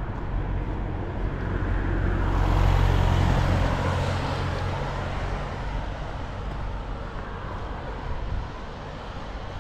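A vehicle passes close by on the street. Its rumble and tyre noise build up, peak about three seconds in and fade away, over steady background traffic.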